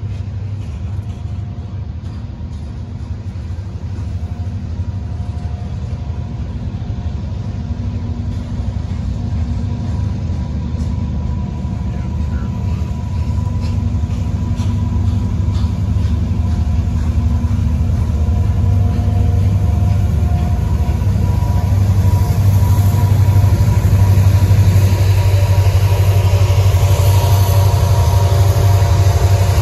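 Loaded coal train rolling past, its hopper cars making a steady low rumble that grows louder as a diesel locomotive draws near toward the end.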